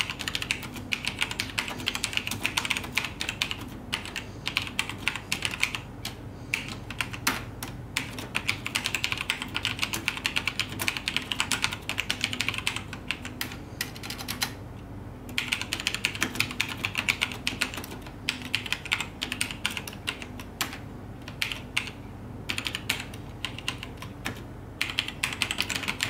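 Continuous fast typing on a 1998 HCL mechanical keyboard with Cherry MX Black switches: linear, non-clicky keys striking in quick succession, with a few short pauses.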